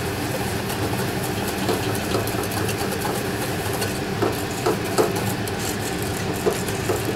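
Wire whisk beating thickening egg yolks and sugar in a stainless steel saucepan, with scattered clicks and scrapes of the whisk against the pan, over a steady low hum.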